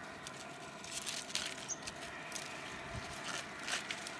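Knife cutting a hand of green bananas free from the bunch, a run of sharp crackles and clicks as the blade works through the fibrous stalk, starting about a second in.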